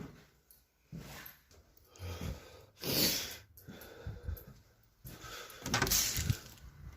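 A man breathing heavily close to the microphone, a series of separate noisy breaths with the loudest about three seconds in and another around six seconds in.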